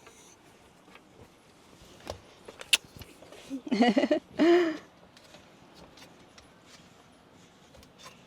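A few light knocks and clicks, then two short voice sounds from a person, like brief untranscribed exclamations, about four seconds in.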